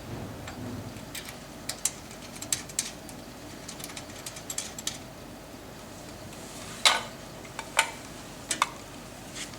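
Small hard clicks and clinks of cables, plugs and a foot switch being handled and connected while a laser welding machine is set up, with a few louder knocks near the end.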